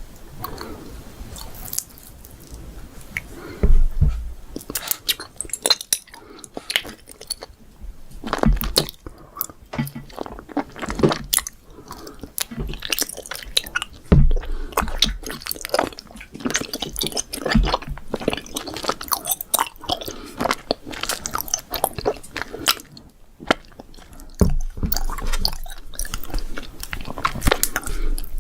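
Close-miked chewing and biting of candy: irregular crisp crunches and crackles, with a few harder bites standing out.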